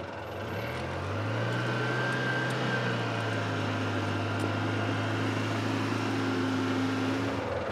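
Engine of a Polaris Ranger 6x6 utility vehicle running under way on a trail. It picks up revs about a second in, holds a steady drone, and eases off near the end.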